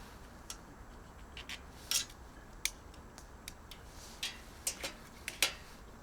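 Irregular light clicks and clinks of small hard objects being handled, about a dozen taps spread unevenly, the loudest near the end.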